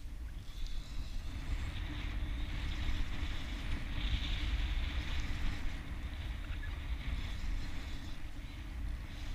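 Wind buffeting the microphone: a steady, gusting low rumble, with a fainter hiss above it.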